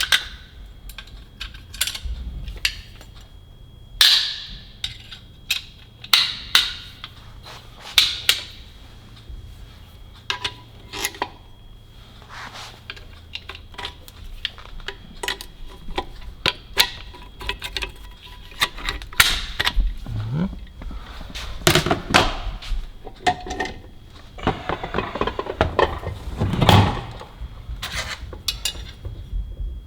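Irregular metallic knocks and clinks of a rear axle differential being assembled by hand: the ring gear's side snap rings being knocked into place. The loudest knocks come about 4, 8, 22 and 27 seconds in.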